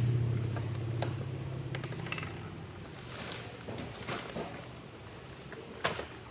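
A few scattered light clicks and knocks of plastic toys being handled, with a low hum fading away over the first two or three seconds.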